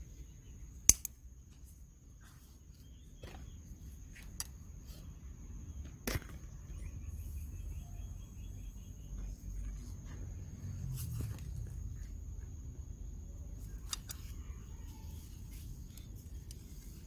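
Handling noise of a phone camera moved among garden plants: a low rumble that swells in the middle, a few sharp clicks with the loudest about a second in, and a faint steady high-pitched tone underneath.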